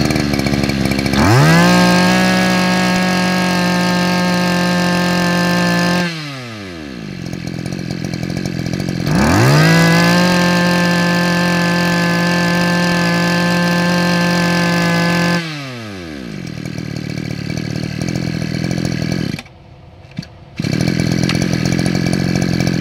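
Stihl FS22 brush cutter's 22cc two-stroke engine, revved to full throttle twice and held steady for about five seconds each time, dropping back to a rough idle between. Near the end it cuts out for about a second and then runs again. This is a test run showing the used engine runs well.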